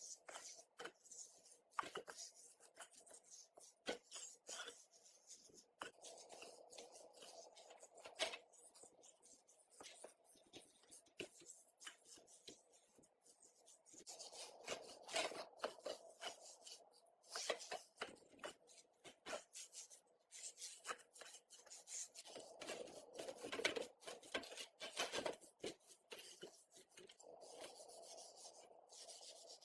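Hand work on small parts: stretches of rubbing and scraping, a second or more each, among scattered light clicks and taps.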